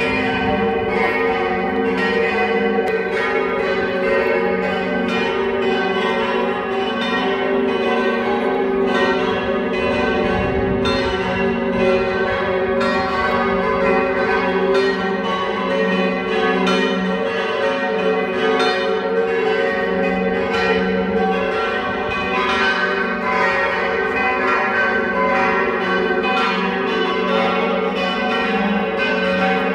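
Church bells in a bell tower ringing together in a continuous peal, the strokes of several bells overlapping without a pause.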